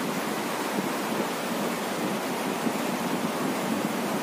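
Steady rushing noise of a swollen, fast-flowing river running over rocks in high water.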